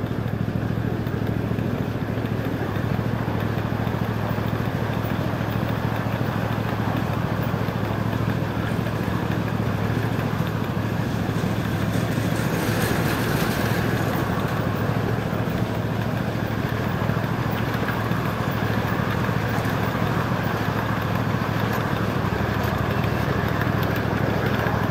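Ride-on miniature railway freight train rolling past close by on the adjacent track: a steady rumble of wheels and running gear on the rails, with a short rise in hiss about halfway through.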